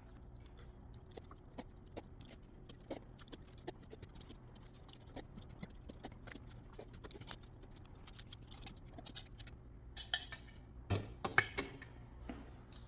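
Eating sounds of someone chewing ramen: scattered small clicks and mouth smacks, with a louder cluster of smacks and clicks near the end.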